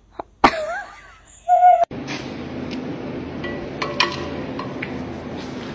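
A husky vocalizing: a short call that rises and falls, then a louder held note, followed by steady background noise with a few clicks.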